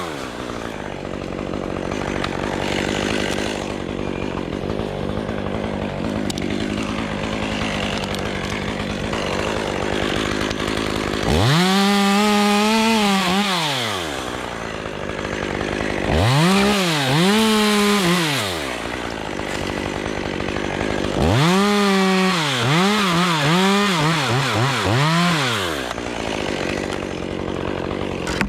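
Two-stroke chainsaw idling, then revved hard three times for two to five seconds each while cutting Leyland cypress limbs; the last burst goes up and down in pitch several times in quick succession.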